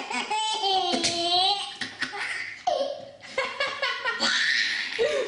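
A small child laughing hard: a long, high, wavering squeal starting about half a second in, then a run of shorter bursts of belly laughter.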